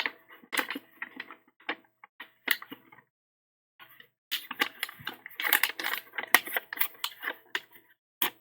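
Origami paper rustling and crackling as it is folded and creased into a paper crane, in irregular clusters of crisp clicks, with a pause of about a second partway through.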